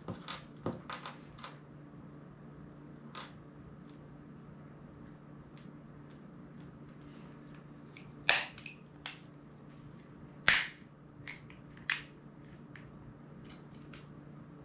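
Sharp clicks and snaps of a small Sony MP3 player's casing being pried apart by hand, with a quick cluster at the start and the loudest snaps a little past the middle.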